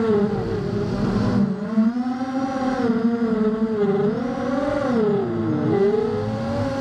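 Racing quadcopter's four T-Motor 1806 2300 kV brushless motors spinning 5x4.5 props, heard from the camera on the drone: a buzzing whine that keeps rising and dipping in pitch as the throttle changes, with its deepest dip about five and a half seconds in.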